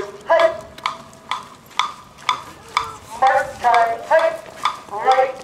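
Many marchers' feet striking the asphalt together in step, about two steps a second, with mass shouts of voices between the steps.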